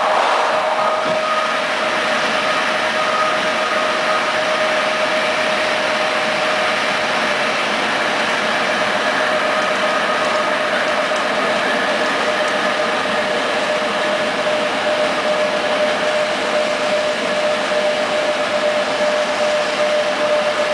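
Passenger train coach running at speed, heard from inside: a steady rush of wheels on rails with a constant high hum.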